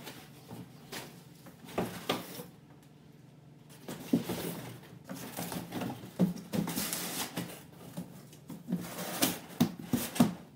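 Cardboard shipping box being rummaged through by hand: flaps scraping and rustling, with irregular knocks and thumps against the box. Busier and louder in the second half.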